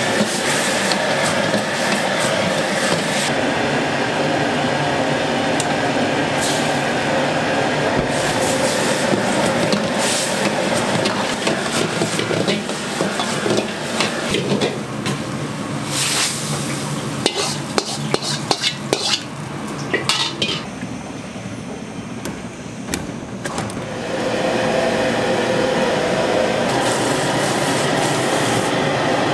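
Diced onions and black bean sauce stir-frying in a wok, sizzling under a steady roaring noise, with the metal ladle scraping and clanking against the wok. A fast run of sharp clanks comes about halfway through, then the sound drops back briefly before the steady roar returns near the end.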